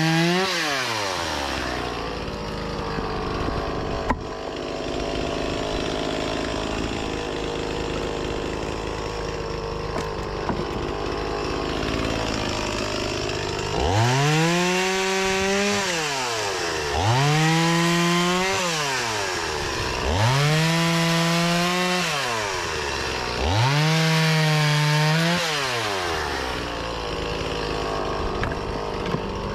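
Two-stroke petrol chainsaw idling, then revved up to full speed four times in a row, about three seconds each, dropping back to idle between runs.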